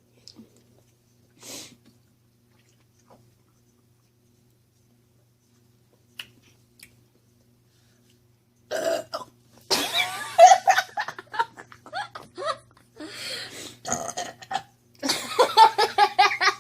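A person burping loudly several times in a row after gulping soda, a string of long, drawn-out burps starting about nine seconds in.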